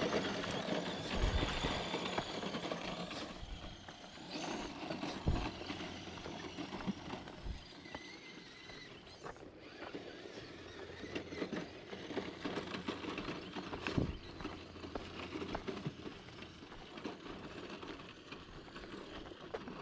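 Enduro Trailwalker RC crawler truck driving over a dirt and gravel trail, its small electric motor and drivetrain running and its tyres crunching over stones. Irregular crunching footsteps on the dirt mix in.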